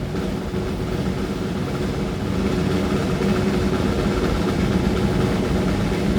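Steady engine rumble with a low hum, growing slightly louder over the first few seconds.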